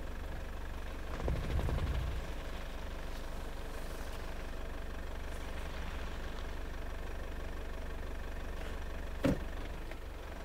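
SsangYong Musso pickup's 2.2-litre diesel running steadily in four-wheel-drive low range while the truck struggles for grip on an icy slope. There is one sharp knock about nine seconds in.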